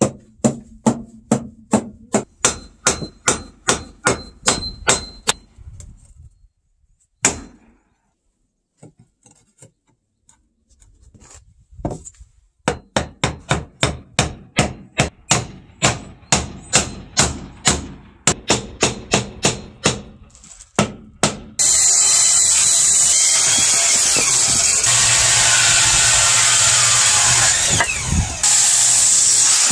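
Hammer blows on a wooden block driving the floorboards of a traditional Korean wooden floor tight, about three a second, in two runs with a pause of several seconds between. About 21 seconds in, a handheld electric power tool starts and runs steadily on the floor, easing off briefly near the end.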